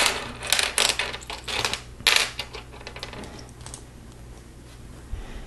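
Plastic Lego bricks clicking and clattering as they are handled and pressed together, a run of sharp clicks over the first three seconds or so, loudest about two seconds in, over a low steady hum.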